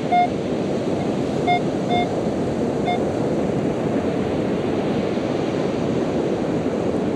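Minelab metal detector giving short, high beeps as its coil passes over a buried metal target, four in the first three seconds. Under them runs a steady rush of wind and surf.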